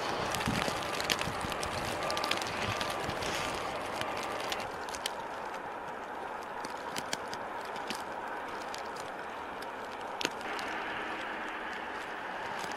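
Steady outdoor background noise, mostly a hiss with faint vehicle sound, dotted with scattered clicks and knocks; the background changes abruptly about four and a half and ten seconds in.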